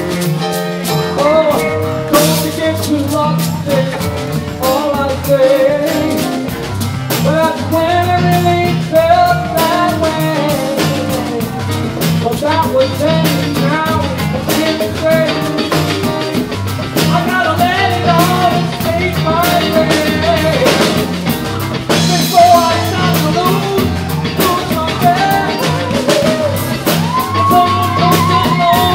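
Live band playing a song with drum kit, bass and guitar keeping a steady beat and a melody line on top.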